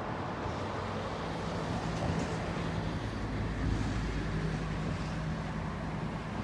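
A steady low mechanical hum over outdoor background noise, swelling slightly about halfway through.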